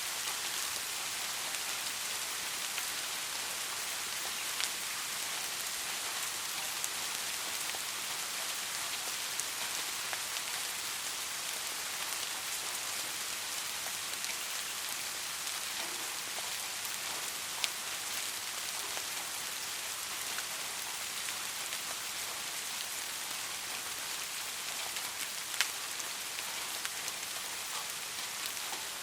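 Steady rain falling on a hard surface, an even hiss with a few distinct raindrop taps standing out, the sharpest about 17 and 25 seconds in.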